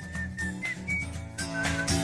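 Background music: a whistled melody over a bass line, with a beat coming in near the end.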